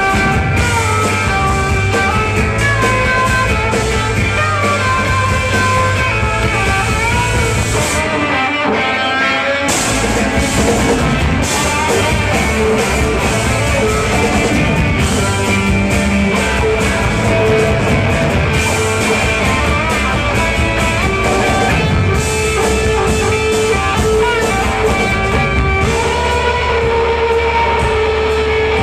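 Live psychedelic rock band playing an instrumental passage: an electric guitar plays a bending lead line over a drum kit. The drums and low end drop out for under two seconds about eight seconds in, then the full band comes back.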